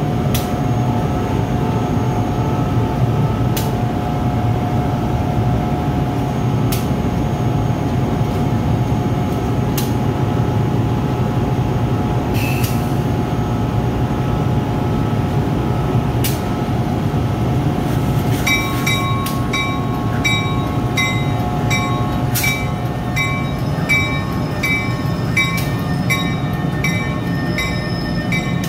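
NJ Transit ALP-46 electric locomotive rolling slowly past close by, with a steady hum and scattered clicks. About two-thirds of the way through, a regular pulsing high tone joins in and repeats until the end.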